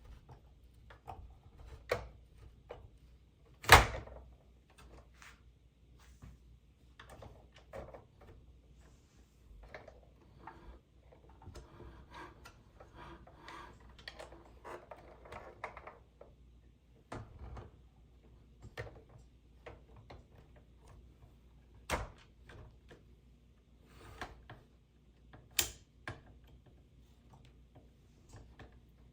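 Plastic toy vehicles being handled: irregular clicks and knocks of hard plastic, the loudest about four seconds in, with a stretch of soft rustling in the middle.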